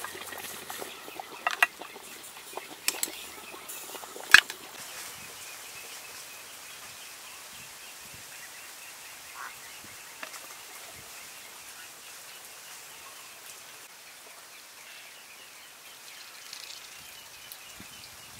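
Metal tongs setting cooked snail shells down on a ceramic plate: a few sharp clicks, the last and loudest about four seconds in. After that, quiet outdoor background with a faint, fast-repeating high chirping.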